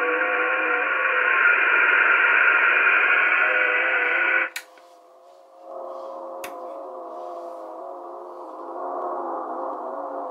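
Shortwave receivers in upper sideband mode on the 80 m amateur band near 3574.9 kHz, reproducing several digital data signals as clusters of steady tones that hop in pitch. About four and a half seconds in, the sound cuts off with a click as reception switches from the Lowe HF-150 to the Tecsun PL-880. The PL-880 brings the tones back quieter and with less treble, and a second click follows about two seconds later.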